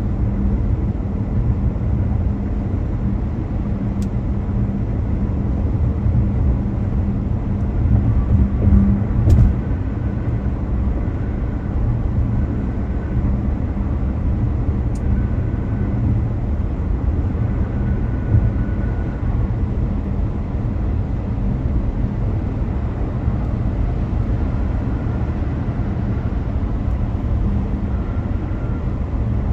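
A car driving: steady road and engine rumble with a low hum, swelling briefly about eight to nine seconds in.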